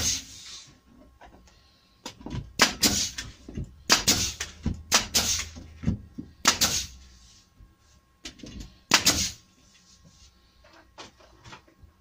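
Nail gun firing pins through an MDF template into a pine board: about ten sharp shots, each a click with a short hiss after it, several in quick pairs, the last about nine seconds in.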